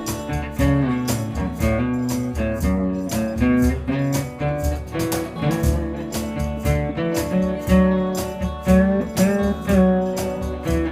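Live acoustic guitar music, plucked and strummed with a steady pulse and a moving melody line.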